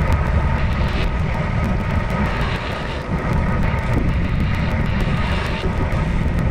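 Steady rumbling wind and road noise on the microphone of a moving road bike.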